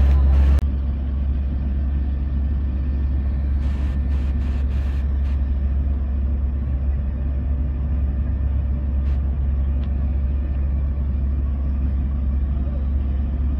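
Steady low rumble of idling emergency vehicles' engines, a little quieter after about half a second.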